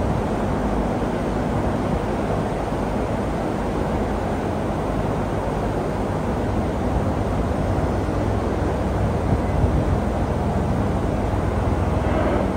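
A vehicle engine running steadily with a low hum under a constant rushing noise of wind and road.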